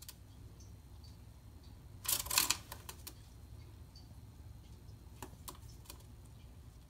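Green-cheeked conure shaking out and fluffing its feathers: a brief, dense rustle about two seconds in. A few light sharp clicks follow later, over a low steady hum.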